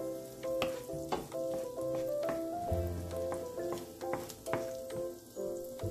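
Ginger and garlic sizzling in hot oil in a frying pan, with scattered sharp pops and clicks as a wooden spatula stirs them. Soft background music with held notes plays underneath.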